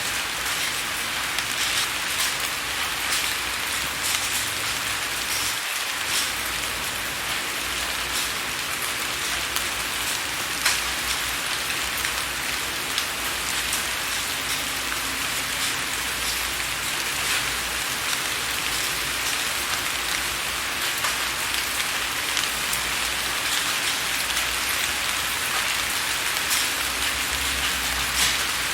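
Rain falling on a window, a steady hiss with many separate drop ticks against the glass.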